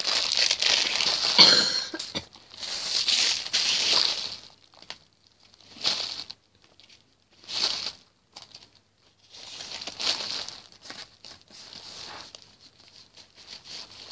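Paper and plastic wrapping crinkling and rustling as small gifts are handled, in about six bursts with short quiet gaps between them.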